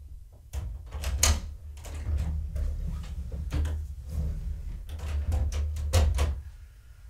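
A series of irregular knocks, clicks and clatters with low thudding, the sound of objects being handled and moved, loudest about a second in and again about six seconds in.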